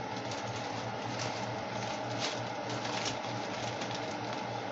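Water at a rolling boil in an enameled cast-iron Dutch oven on a glass-top range: steady bubbling with many small irregular pops, over a low steady hum.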